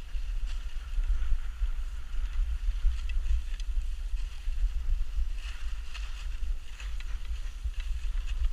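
Wind buffeting the camera microphone during a ski descent, a steady low rumble, over the hiss and scrape of skis sliding on packed snow.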